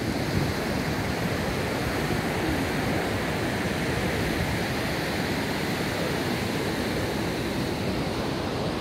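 Steady rush of ocean surf breaking on the beach, with some wind on the microphone.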